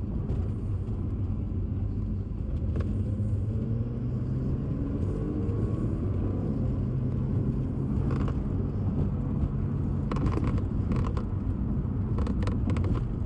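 A 2023 Porsche 911 Carrera Cabriolet on the move, heard from the cabin: steady engine and road rumble, with the engine note rising a little midway. A few short creaks or clicks from the convertible roof come about eight seconds in, twice around ten to eleven seconds, and once near the end.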